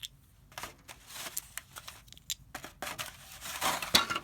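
Light rustling and scattered small clicks of packaging and plastic model-aircraft parts being handled, getting busier near the end.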